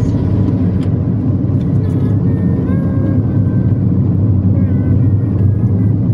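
Steady low engine and road rumble heard from inside a moving car in heavy traffic close behind a bus, with a few faint brief high tones around the middle.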